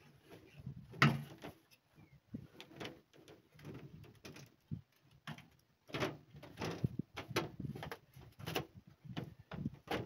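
A hand staple gun firing staples through clear plastic sheeting into a timber frame: several sharp snaps, the loudest about a second in and a quicker run from about six seconds on, with the plastic sheet crinkling between them.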